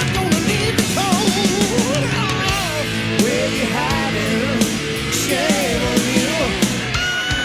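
Hard rock band playing, with drums, bass and a lead line of bending notes, likely an electric guitar solo. About seven seconds in, the band drops out and a steady high tone starts.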